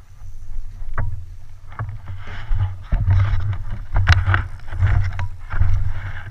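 Water rushing and wind buffeting around a boat on the river, a heavy uneven rumble with swells of hiss about once a second and a couple of sharp knocks.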